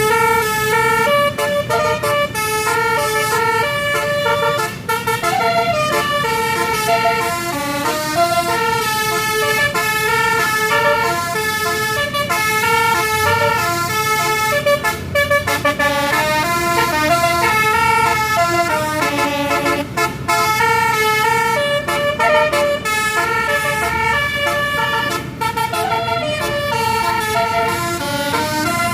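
Tour bus telolet horn of the basuri type, a multi-tone air horn playing a melody note after note with barely a break, loud and sustained.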